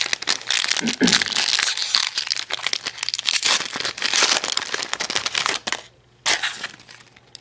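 Foil wrapper of a trading-card pack crinkling as it is torn open and crumpled, a dense crackling for about six seconds, then one short crinkle near the end.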